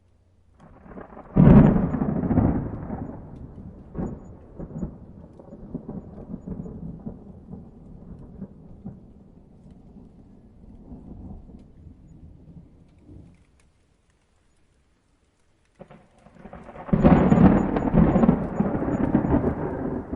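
Two peals of thunder. The first breaks with a sharp crack about a second and a half in, then rumbles and fades away over about ten seconds, with a few smaller cracks along the way. After a couple of seconds of silence, a second loud clap builds up and rolls near the end.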